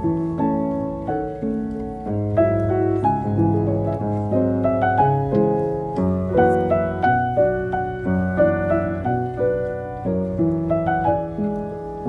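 Background piano music: a gentle melody of struck notes over sustained low chords.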